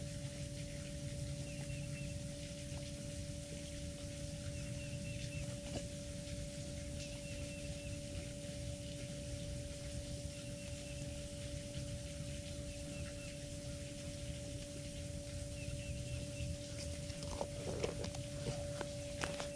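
Outdoor ambience: a steady low hum with faint short chirps repeating every second or two.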